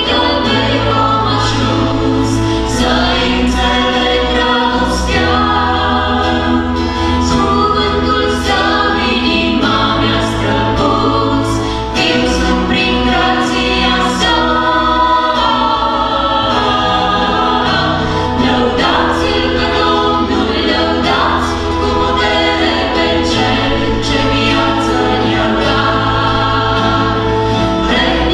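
Worship band music: several voices singing a hymn together in harmony, accompanied by acoustic guitar, electric guitar and keyboard over a steady bass line.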